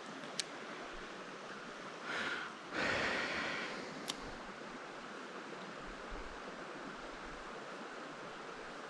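Steady rush of creek water, with two sharp clicks and two short, louder bursts of noise about two to four seconds in.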